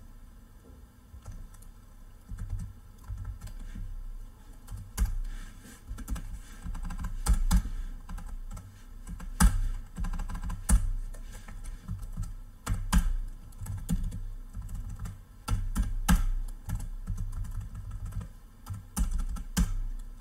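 Computer keyboard typing: irregular spurts of key clicks with short pauses between them, over a steady low hum.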